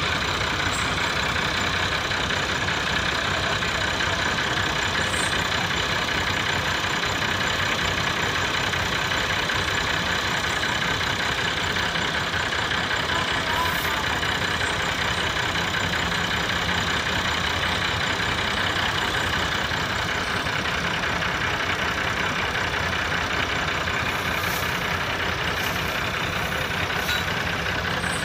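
Several Massey Ferguson 375 tractors' diesel engines running steadily together under load while pulling a heavily loaded trolley stuck in the mud.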